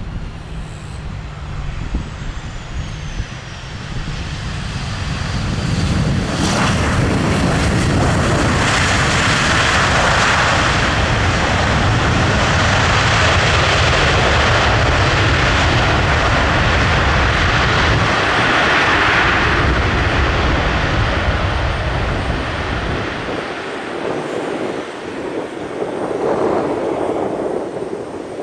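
Boeing 737 jet airliner's engines passing. The noise swells about five seconds in, holds loud and steady for about twelve seconds, then fades, with a short second swell near the end.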